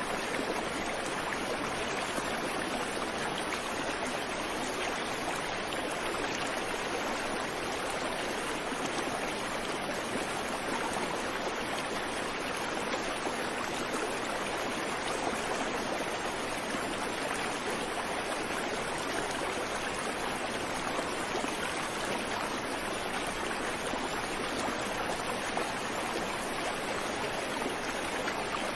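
Creek water flowing and babbling over rocks in a steady, unbroken rush, with no birdsong.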